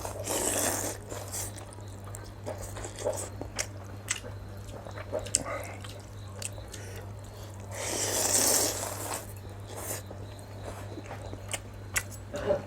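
A person eating chicken thukpa noodle soup close to the microphone: chewing and small clicks of eating, with two longer slurps, one at the start and one about eight seconds in, over a low steady hum.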